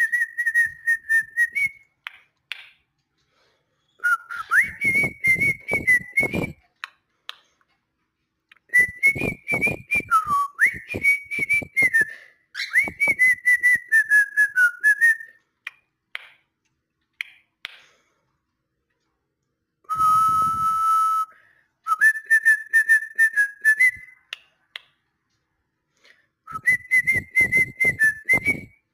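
A cockatiel whistling in a run of short warbled phrases, each a couple of seconds long, mostly on one high note with small wavering slides, with pauses between them. About two-thirds of the way through comes one steadier, lower held note.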